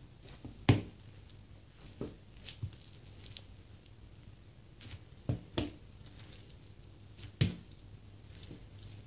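Rubber sole of a white Nike Air Force 1 sneaker tapping on a tile floor as the shoe is tilted and set down, about six soft knocks spaced a second or more apart, the loudest about a second in and near the end.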